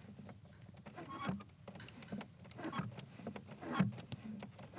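Faint scattered clicks and light knocks of hands handling parts, with a few brief louder knocks.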